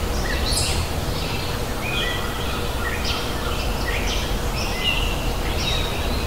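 Birds calling over and over, short high chirps and whistled notes about once a second, over a steady low outdoor rumble.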